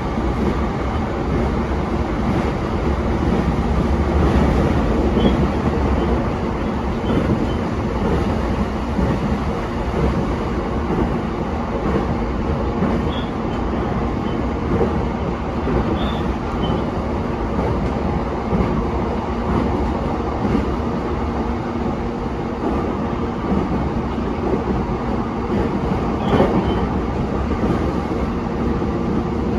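E233-7000 series electric train running at speed over the freight line, a steady rolling noise with a low rumble. A few faint short squeaks come at intervals.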